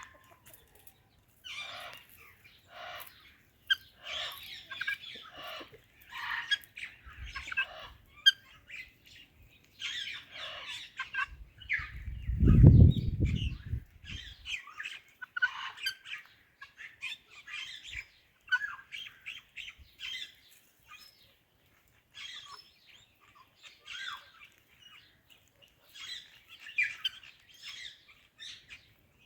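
Ringneck and Alexandrine parakeets calling: a steady run of short, high chirps and squawks. About halfway through comes a loud, low whoosh lasting about two seconds.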